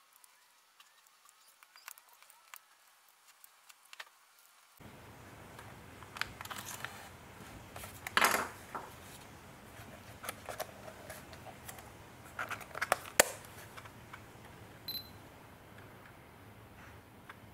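Canon PowerShot G12 compact camera handled and switched on: scattered small clicks and taps of buttons and body, a louder brief noise about eight seconds in, and a short electronic beep near the end.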